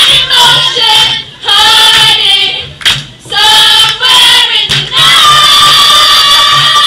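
A crowd of teenage girls singing together loudly in short phrases over a steady low beat, the last note held for about two seconds.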